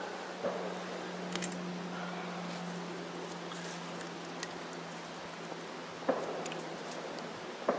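Twigs burning in a small wood gasifier stove with light crackles and pops, over a faint steady hum, and a few louder knocks near the start and near the end.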